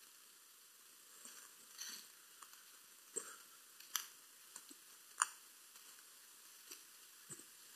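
Footsteps on a dirt forest path: quiet, irregular crunches and clicks about once a second over a faint steady hiss.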